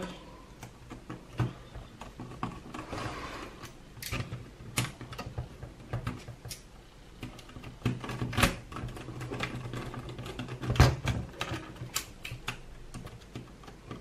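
Irregular small clicks and taps of hands handling the opened plastic case of a Jumper T16 radio transmitter while its scroll-wheel circuit board is pressed back into its holder.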